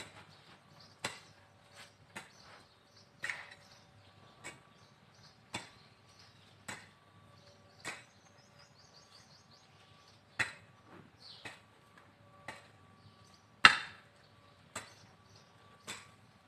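Short-handled hoe chopping into garden soil, a sharp strike about once a second with a brief pause in the middle; one stroke in the later part is much louder than the rest.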